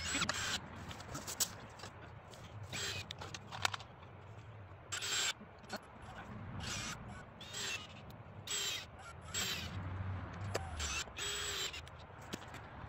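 Irregular clinks and scrapes of hand work on miniature railway track, tools and rail hardware being handled at a rail joint, in short bursts every second or so.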